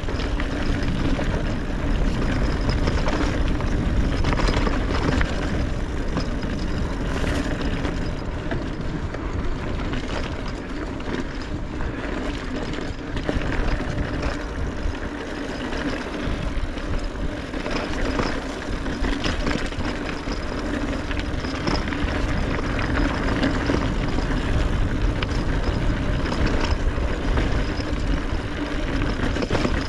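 Wind buffeting the microphone of a mountain biker riding into a headwind, over the steady rolling noise of the bike on a dirt trail, with scattered clicks and rattles from the bike.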